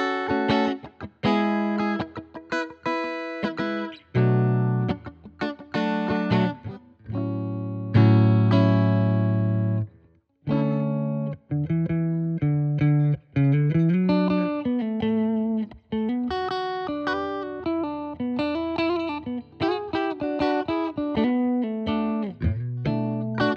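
Donner Hush-X headless electric guitar played with a clean tone in its active pickup mode: picked chords, one left ringing about eight seconds in, then single-note melodic lines with a few notes sliding up in pitch.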